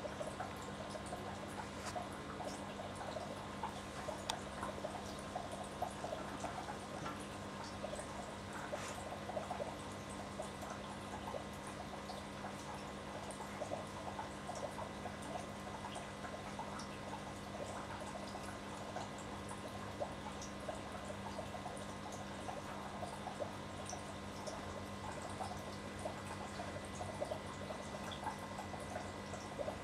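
Aquarium water bubbling and trickling steadily, with many small pops and ticks, over a steady low hum.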